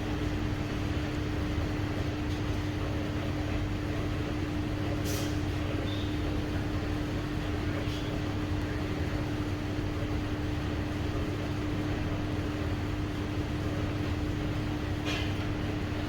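A steady mechanical hum with a constant low tone, and a few faint clicks.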